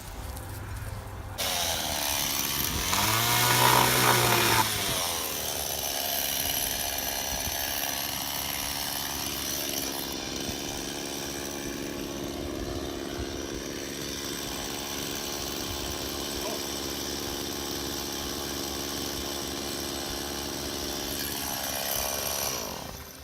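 A motorised power tool running. It revs up and down early on, then runs steadily for most of the time and winds down near the end.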